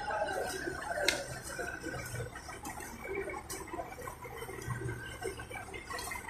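Shovels scraping and scooping sand and soil, with scattered sharp ticks and clinks of the blades. A faint low hum of the boom truck's diesel engine runs underneath.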